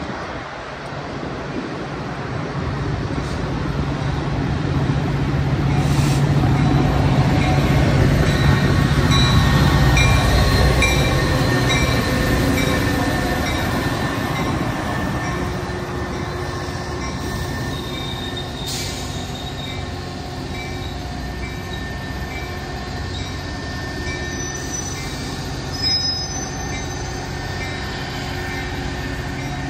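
Train running by on the tracks: its rumble builds to a peak about ten seconds in, then eases off to a steady level, with steady high wheel tones and brief high wheel squeals near the end.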